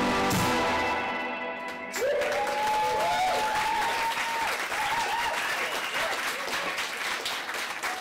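The band's last chord rings out and fades, and about two seconds in a small audience breaks into applause, with a voice whooping.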